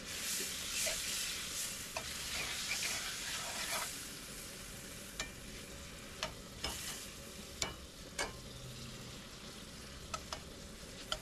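Filet mignon steaks sizzling in hot oil in a cast-iron skillet, turned to sear all sides. The sizzle is louder for the first few seconds and then settles lower, and metal tongs click against the pan several times.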